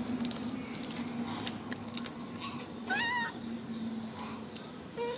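Baby macaque giving one short cry that rises in pitch about three seconds in, and a brief lower call near the end. Light clicks and crackles from handling the snack wrapper, over a steady low hum.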